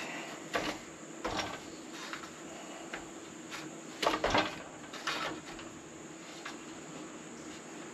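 Scattered light knocks and clicks as a plastic piece and a wooden board are handled and set in place on the table of a stopped chop saw. The loudest knocks come about four seconds in.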